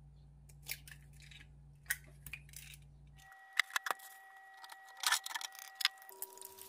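Eggs cracked into a nonstick egg pan: sharp clicks of eggshell tapping and breaking, then louder spitting clicks as the eggs hit hot oil and start to fry.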